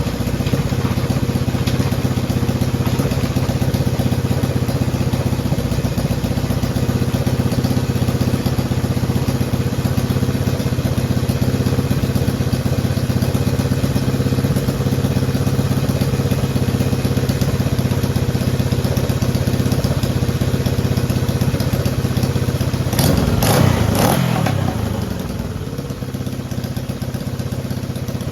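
Honda CJ360's parallel-twin engine running at a steady, even note. About 23 seconds in it revs up briefly and falls back, then runs on a little quieter.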